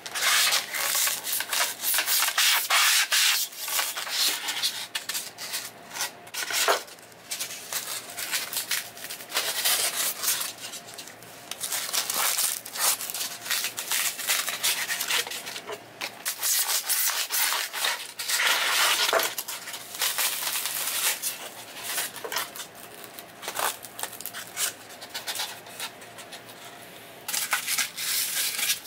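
Styrofoam squeaking and crunching as pieces are cut with a blade and pushed into a gap along the wall, in irregular scraping strokes with a short pause about halfway through.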